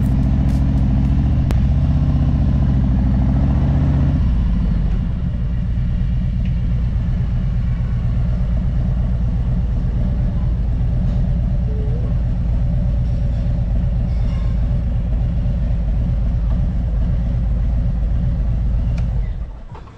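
Harley-Davidson Road King Special's V-twin engine pulling away, its pitch rising for about four seconds, then dropping to a steady idle rumble that stops abruptly near the end.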